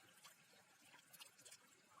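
Near silence, with faint scattered small splashes and trickles of pond water.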